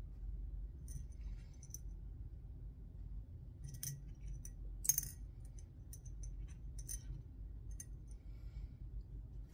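Small metal scope-ring parts clicking and clinking as they are handled and set down, a scattering of light taps with the sharpest clink about five seconds in, over a low steady hum.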